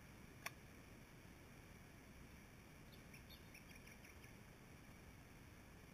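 Near silence: faint outdoor background noise, with a single sharp click about half a second in and a few faint high chirps around three to four seconds in.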